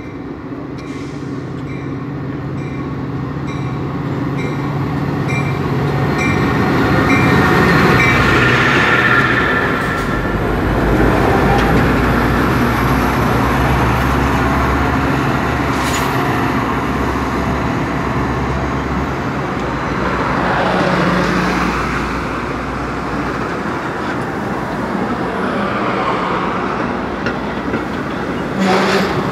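Two Metra diesel locomotives arriving at close range, engines running and growing louder as they pass about eight seconds in, with a small repeating ring over the first few seconds like the locomotive bell. The bilevel coaches then rumble past on the rails, with brief wheel or brake squeal as the train slows into the station.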